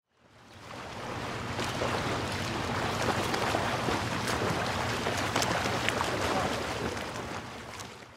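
Rushing of ocean surf and wind, a steady even wash that fades in at the start and fades out near the end.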